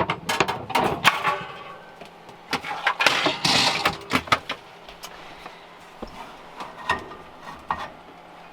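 Baking pan knocked and handled as a home-baked loaf is turned out of it: a quick run of sharp knocks and clatters, a scraping rustle about three seconds in, then a few single clicks.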